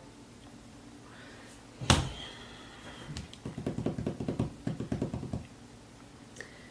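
One sharp click, then about two seconds of rapid, irregular soft tapping and handling noise.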